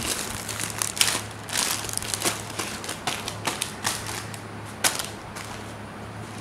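Plastic bag rustling and crackling as it is handled, in irregular clicks and crinkles, over a steady low hum.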